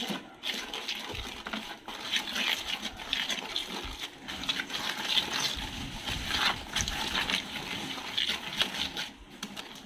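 Black plastic stirrer churning thick, foamy dishwashing-liquid mixture round a plastic basin, in quick irregular strokes: the gel and salt being mixed until the gel dissolves.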